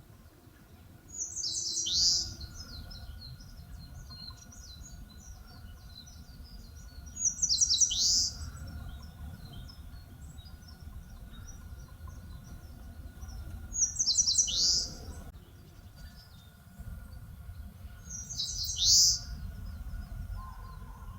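Eastern crowned warbler singing four times, about every five or six seconds. Each song is a quick run of high, thin notes ending in a loud downward-sweeping note.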